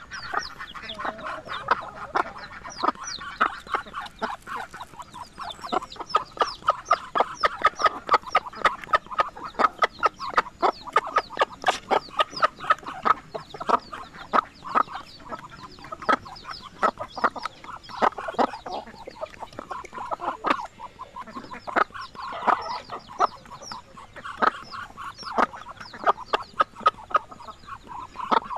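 Muscovy ducks and chickens feeding on grass: a dense, rapid run of short clicky pecking and clucking sounds, several a second.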